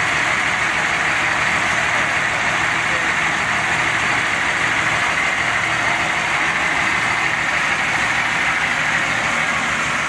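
D14 fishing-boat engine running steadily at a constant speed, under test to hear how it sounds.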